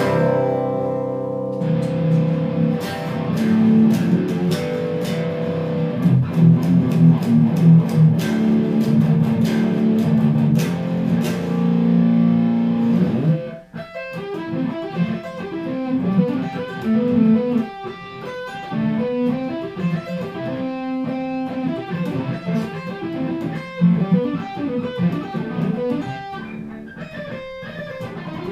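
Hardluck Kings Spider electric guitar, amplified and still on its original stock pickups, played as a tone demonstration. It rings out in sustained, picked chords for about the first half, breaks off briefly, then plays fast single-note lead runs.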